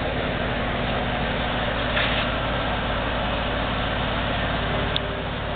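A JET 15-inch bench drill press's motor running steadily with a low hum, with a short louder hiss about two seconds in and a click near the end.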